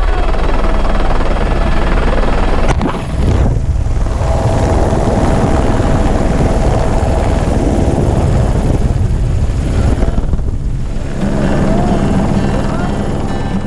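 Helicopter engine and rotor noise, loud and steady, with wind rushing in at the open cabin door, picked up close by a handheld camera's microphone. It breaks off briefly about three seconds in, then runs on.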